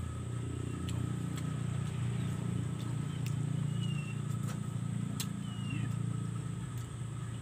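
A steady low motor drone, like an engine running nearby, with scattered sharp clicks and a few short high chirps.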